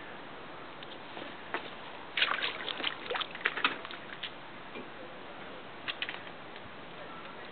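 Water lapping against a boat hull over a steady hiss. A quick run of light slaps and clicks comes about two seconds in, and a couple more near six seconds.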